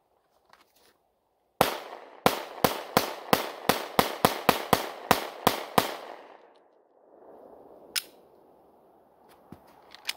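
Taurus G3C 9mm pistol fired in a drawn-and-emptied magazine dump: one shot about a second and a half in, then a fast string of about fifteen more shots that ends about six seconds in, each echoing briefly. A single sharp knock follows about two seconds later.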